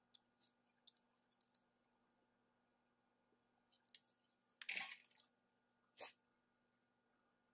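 Quiet handling noise at a soldering bench: scattered faint ticks, a short clinking clatter just before the five-second mark, and one sharp click about a second later, as the circuit board and soldering tools are moved.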